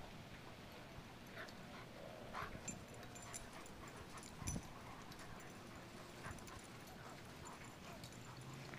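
Dogs playing and wrestling on grass: faint, short, scattered dog play noises, with a dull thump about halfway through.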